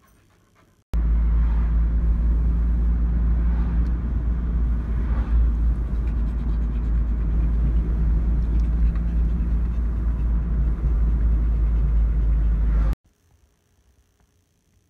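Steady, loud rumble of a car on the move, heard from inside the cabin. It starts suddenly about a second in and cuts off suddenly near the end.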